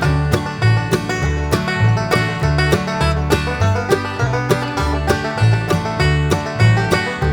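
Upbeat bluegrass-style background music with plucked banjo and guitar over a steady bouncing bass beat.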